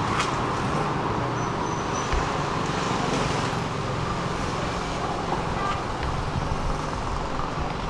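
Steady road traffic noise, with a short click just after the start.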